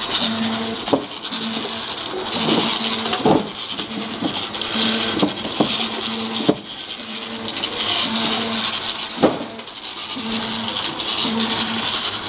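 Automatic double-sided bottle-labeling machine running: a steady hiss with a hum that switches on and off again and again, and a few sharp clacks scattered through.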